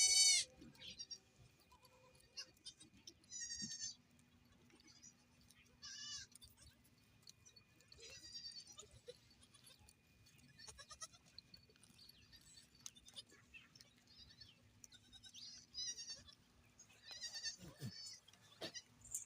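Goats bleating, about ten separate wavering calls spaced a few seconds apart, the loudest right at the start.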